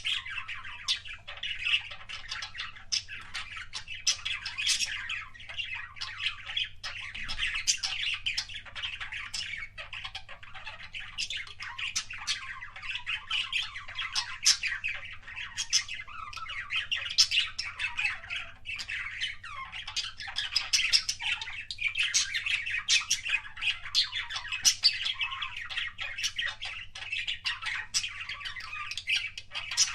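Budgerigars chattering nonstop: a dense, warbling stream of chirps, squawks and quick clicks, the kind of budgie chatter called 'kissing sounds'.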